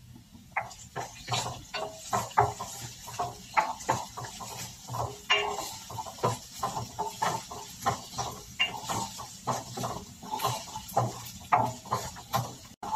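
Minced garlic and ginger frying in hot oil in a ceramic-coated pan: an irregular crackling sizzle with many quick pops, and a plastic spoon stirring and scraping in the pan.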